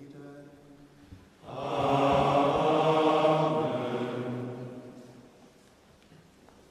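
A single intoning voice fades out, and about a second and a half in many voices sing a short chanted liturgical response together, dying away in the church's reverberation a few seconds later.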